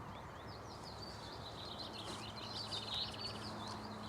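Songbirds singing: scattered chirps at first, then a fast, varied warbling run with a quick rattling trill in the second half. Faint steady hum and outdoor background noise underneath.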